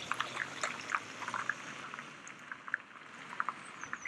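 An Audi estate car pulling away over a wet, slushy road: tyre hiss with small splashes that fades as it drives off.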